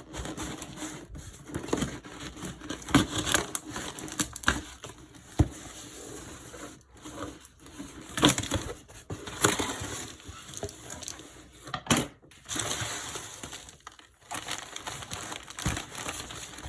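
Packaging of a mailed plant shipment being handled and opened: irregular rustling, scraping and crinkling, with sharp cracks and knocks scattered throughout.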